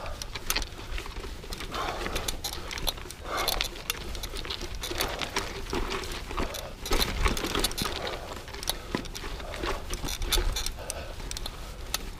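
Mountain bike riding over a rocky dirt trail: tyres crunching on gravel and stones, with frequent clicks and rattles from the bike, and low wind rumble on the mic. The rider's breathing comes in regular puffs about every one and a half to two seconds.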